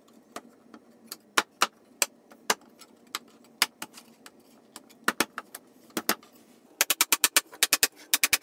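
Oak joinery parts knocking together as they are fitted by hand: a scattering of sharp wooden knocks. Near the end comes a quick run of light wooden mallet taps on the joints, about seven a second.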